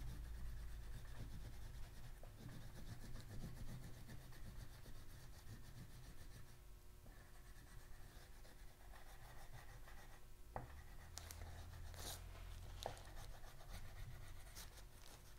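Faint oil pastel scratching and rubbing on paper as dark colour is shaded and blended in, with a few light ticks about two-thirds of the way through.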